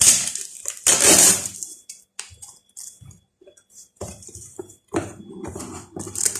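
Scissors cutting open a small cardboard box: two loud scraping, rasping strokes in the first two seconds, then scattered clicks and rustles as the box is handled and cut.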